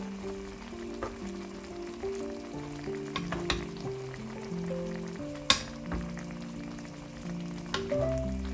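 Pork tenderloin cooking in sauce in a pan over medium heat, sizzling, with a few sharp clicks of a utensil against the pan, the loudest just past halfway. Soft background music plays under it.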